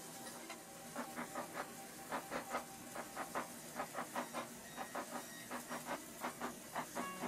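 Chinese cleaver chopping vegetables on a wooden cutting board. It comes as quick runs of sharp strikes, about four a second, starting about a second in.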